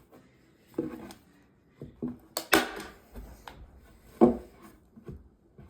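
Several sharp clacks a second or two apart, with two in quick succession near the middle, as upholstery fabric is stretched and fastened down onto a plywood chair seat.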